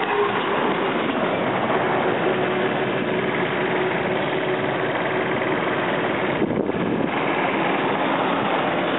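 Wind and road noise rushing past a scooter on the move, with a small scooter engine droning steadily underneath. A big truck goes by in the oncoming lane near the start.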